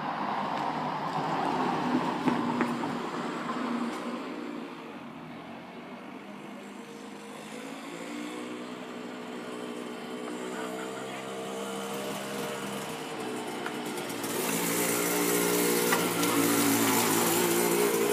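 Aprilia RS125's single-cylinder two-stroke engine running, getting louder from about fourteen seconds in as the bike comes closer. It carries a knocking from the bike, which the owner takes for a problem with the engine.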